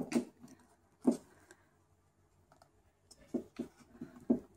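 Canon EOS 60D DSLR shutter firing at the start, a quick double click, followed by a single click about a second later and a cluster of small clicks and taps near the end as the camera's buttons are handled.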